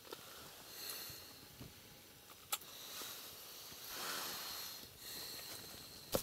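Quiet rustling of clothing and handling of ice-fishing gear, with one short sharp click about two and a half seconds in.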